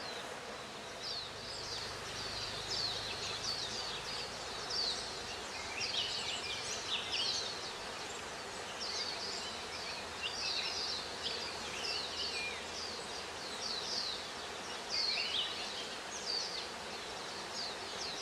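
Small forest birds calling: many short, high, downward-slurred chirps, overlapping and repeated, over a steady background hiss.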